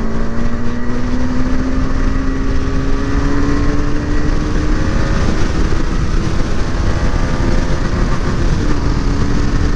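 KTM 250 Adventure's single-cylinder engine running under way, its note climbing slowly as the bike gathers speed, with wind rushing over the microphone.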